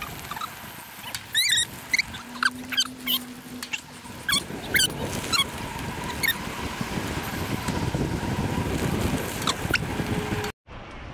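Mountain bike rolling fast along a dirt woodland trail: steady tyre noise and wind on the mic, growing heavier in the second half, with a run of short high chirps during the first half. The sound cuts off abruptly near the end.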